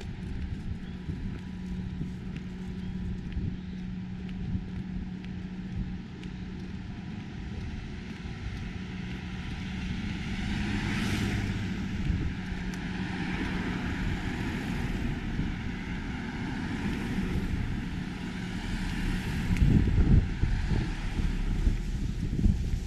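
Outdoor traffic sound: a steady low hum, with a vehicle passing that swells to its loudest about halfway through and smaller swells after it, and a low rumbling near the end.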